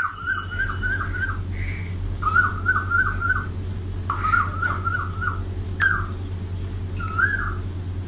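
Cuckoo singing: three runs of four or five quick, clear whistled notes, each run about a second long, then two single notes near the end.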